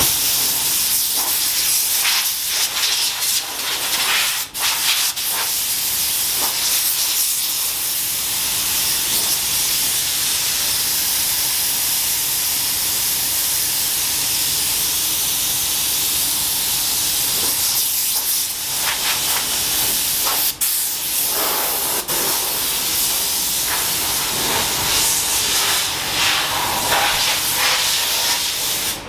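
Compressed-air blow gun hissing steadily as it blows dust off a primed car hood during tack-cloth wiping before painting. The air cuts out for a moment a few times.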